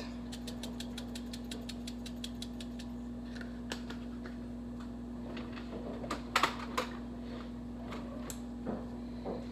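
Red pepper flakes being dispensed from a spice jar over a cooking pot: a rapid, even run of small clicks, about ten a second, lasting a few seconds, followed by a few scattered knocks. A steady low hum runs underneath.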